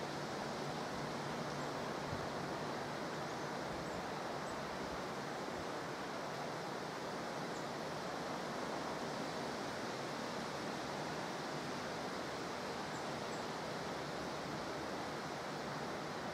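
Steady outdoor background hiss with no distinct events, with a few faint high ticks now and then.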